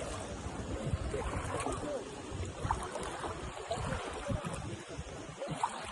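Sea waves washing, with wind buffeting the microphone in uneven low rumbles.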